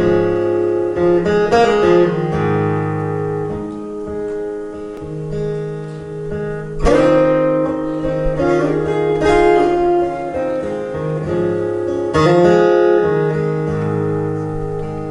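Acoustic guitar playing an instrumental intro, chords left to ring, with a strong strummed chord about seven seconds in and another near twelve seconds.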